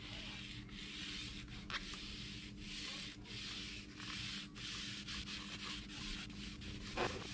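Ceramic-coating applicator pad rubbed back and forth over the face of an alloy wheel, a scrubbing hiss in repeated strokes.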